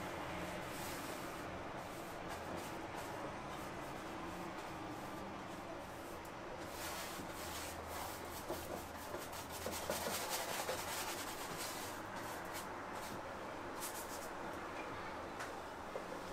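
Rubbing and scraping of painted canvases and boards being handled and slid past one another, with a run of quick scuffs and clicks from about seven to eleven seconds in, over a steady hiss.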